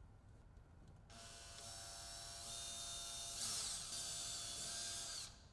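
Small cordless drill running for about four seconds, drilling pilot holes for the remote control holder in the plastic dashboard. Its whine grows a little louder, with a brief change in pitch about halfway through.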